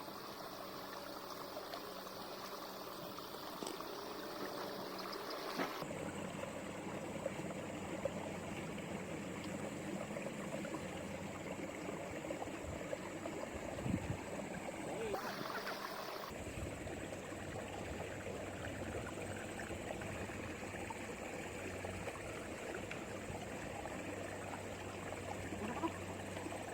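Steady wash of flowing river water. The background sound changes abruptly at about six seconds in and again around fifteen seconds in.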